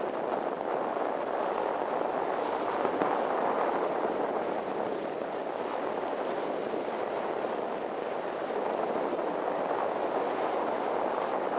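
Steady rushing noise of a Suzuki Raider 150 motorcycle under way: wind over the microphone mixed with engine and road noise, even and unbroken throughout.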